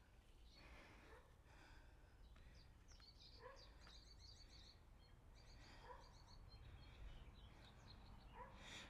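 Near silence: faint breathing, with faint high bird chirps in a few short phrases.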